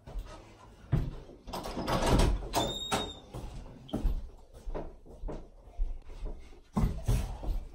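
A wooden interior door being opened, with a short hinge squeak just before three seconds in, among several thumps and knocks; more thumps come near the end.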